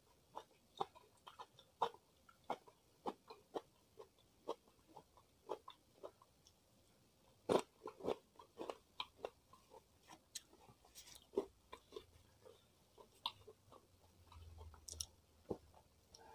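Close-miked chewing with irregular, crisp crunches, one or two a second, the loudest about halfway through.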